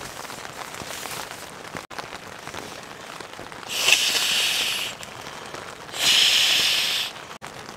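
Two long breaths blown by mouth into the valve of a Therm-a-Rest NeoAir inflatable sleeping pad, each about a second long, over a steady patter of rain on the tent.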